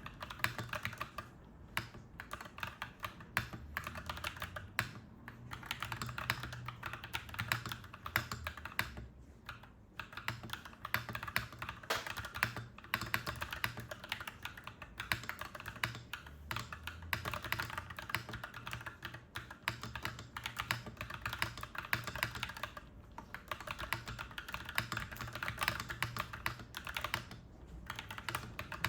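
Clacky mechanical keyboard being typed on continuously, rapid keystrokes with a few brief pauses, over a low steady hum.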